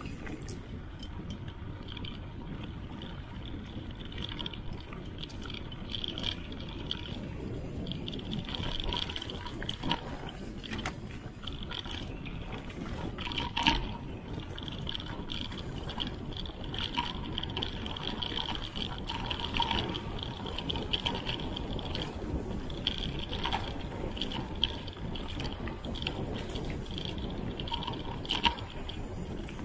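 Mountain bike riding fast down a dirt singletrack, heard from a handlebar-mounted camera: steady rumble of tyres on dirt, with the bike rattling and knocking over bumps and an intermittent high-pitched buzz.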